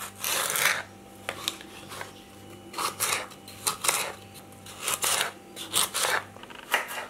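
Kitchen knife cutting raw carrot into cubes on a wooden chopping board: a crisp slice through the carrot and a tap of the blade on the board, about once a second.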